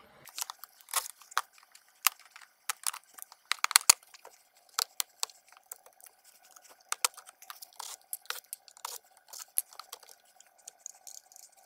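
Plastic dashboard trim panels of a 2017 Nissan Rogue being pried off by hand: irregular sharp clicks and snaps as the retaining clips let go, with plastic rubbing and creaking in between.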